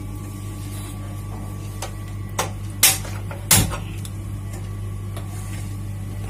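A few sharp clicks and knocks from an iron kadhai being set up on a gas stove, the two loudest about three and three and a half seconds in, over a steady low hum.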